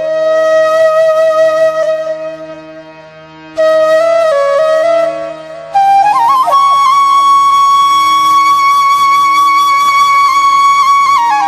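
Background music: a slow woodwind melody of long held notes that slide between pitches, over a steady drone.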